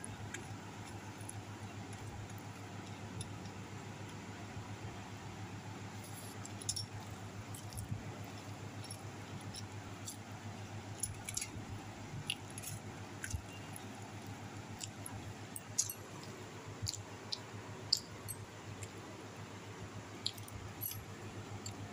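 Faint clicks and ticks of fingers and rice against a steel plate as rice is mixed by hand with curry, with a steady low hum under it. The clicks come more often from about six seconds in.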